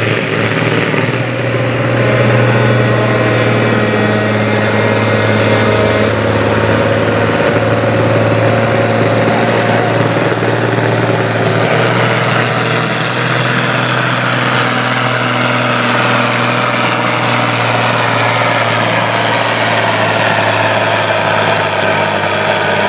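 Farm pulling tractor's diesel engine running loud and steady at a constant pitch. A thin high whine climbs partway through, about six seconds in, and levels off.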